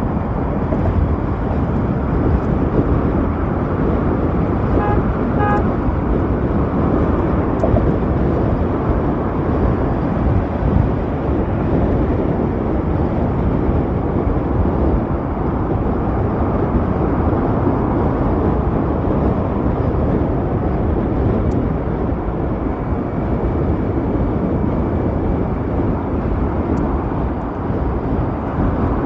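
Steady rush of wind and road noise while riding an Ather 450X electric scooter, with two short horn toots about five seconds in.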